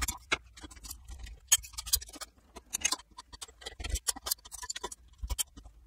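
Irregular light clicks and taps of a hand tool and small copper and aluminum scrap pieces being handled, with a few sharper taps about one and a half and two seconds in.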